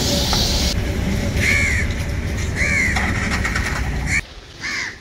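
A crow cawing four times in short arched calls over a steady low rumble, which drops away sharply near the end.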